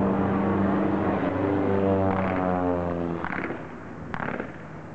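Single-engine propeller biplane flying low overhead. Its engine note slides down in pitch as it passes, then fades away. There is a brief sharp crack about four seconds in.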